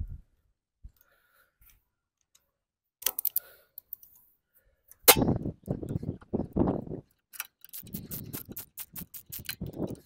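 Ratchet wrench clicking in quick strokes as a new spark plug is run down and tightened into a riding mower's engine. Before the clicking, a few seconds of low muffled thumping and handling noise.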